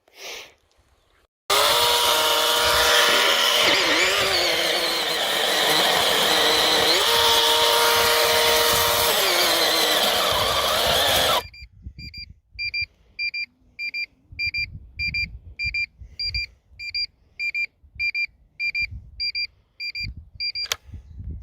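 Greenworks 40 V cordless chainsaw running at full speed for about ten seconds, its motor whine dipping in pitch twice, then cutting off suddenly. A high electronic beep follows, repeating about twice a second.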